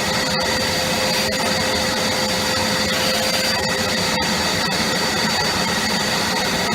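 Vacuum cleaner running steadily: a constant rush of air with a steady high whine.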